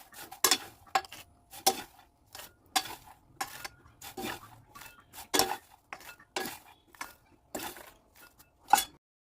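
A metal spatula or spoon stirring and knocking in a metal pan of popcorn: irregular clanks with a metallic ring, about two a second, that stop suddenly near the end.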